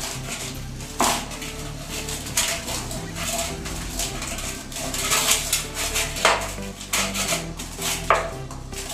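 Steel cooking pots and utensils knocking and clinking: several sharp knocks, irregularly a second or two apart.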